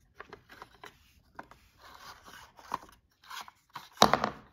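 A blind's tilt rod being worked out of the headrail through its plastic tilt mechanism: irregular scraping and clicking, with one louder knock about four seconds in.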